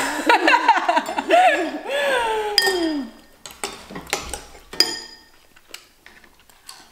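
A woman laughs loudly for about three seconds, then a spoon clinks a few times against a bowl.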